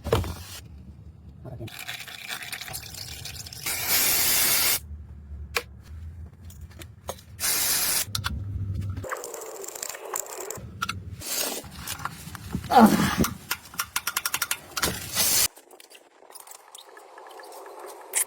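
A string of short cut-together workshop sounds from an oil change: several bursts of spray-like hiss of about a second each, liquid pouring and dripping, scrapes and clicks.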